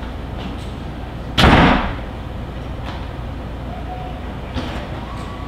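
One loud, short thud about a second and a half in, fading quickly, over steady low room noise.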